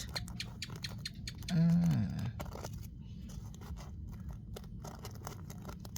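Soil being scraped and picked at by hand while digging out a burrowing insect: a run of small scratches and clicks. A short wordless voiced sound comes about one and a half seconds in.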